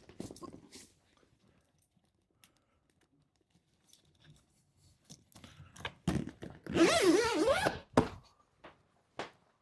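A zip on a padded fabric bed-corner cover pulled closed in one run of about a second, after a few knocks and rustles of handling the padded corner.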